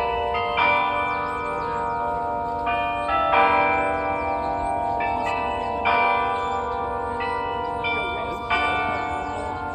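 The bells of the Delacorte Music Clock playing a tune, a new note every half second to a second, each note ringing on under the next.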